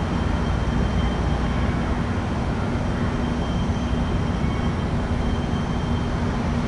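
Air conditioner running: a steady mechanical drone with a constant hum.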